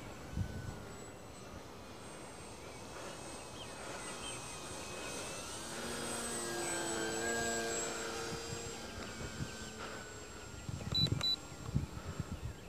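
The newly fitted stock brushless electric motor and propeller of a Dynam Tiger Moth RC biplane buzz as the model flies past. The sound swells to its loudest about six to eight seconds in, then fades as it climbs away. A few low knocks, like wind or handling on the microphone, come near the end.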